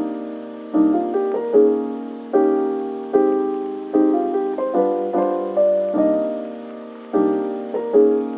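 Background lo-fi instrumental music: soft piano chords struck about once every second, each one fading before the next.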